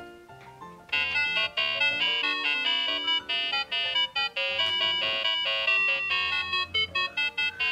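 Electronic melody played by the Pororo toy road-sweeper truck's sound button: a tinny tune of quick, short notes that starts about a second in.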